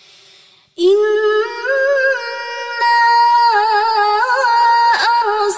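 A woman's voice reciting the Quran in melodic tartil style, drawn out in long held notes with ornamented turns. It begins about a second in, after a short intake of breath.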